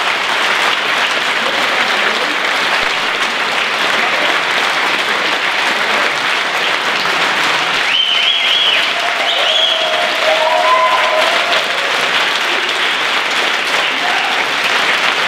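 Audience applauding steadily, with a few short cries heard over the clapping about eight to ten seconds in.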